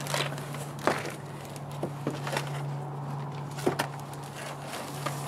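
Handling noise from toy packaging: plastic blister cards and bubble wrap crinkling and clicking as figures are lifted out of a cardboard box, with a few sharp crackles spread through. A steady low hum sits underneath.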